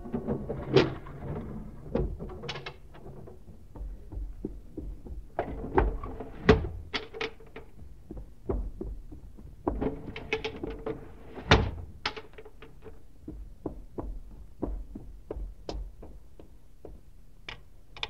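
Radio-drama sound effects of windows being shut and latched: an irregular series of knocks, thuds and sharp clicks, the loudest about a second in, about six and a half seconds in and about eleven and a half seconds in.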